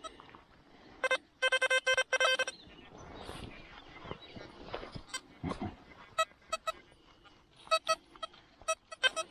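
XP Deus metal detector giving short electronic target beeps: a fast run of repeated beeps near the start, then scattered single beeps at a slightly higher pitch, as the coil passes over metal in the ground.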